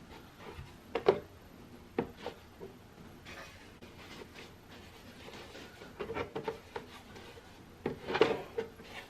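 Light knocks and clatter of objects being handled and set down, with rubbing and scraping between them. There is a sharp knock about a second in, another at two seconds, and a busier cluster of knocks in the last three seconds.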